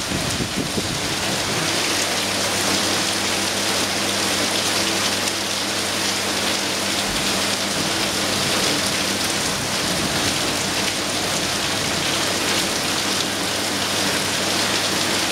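Heavy monsoon rain pouring down steadily, splashing onto paved ground and a flooded street, with a low steady hum beneath it.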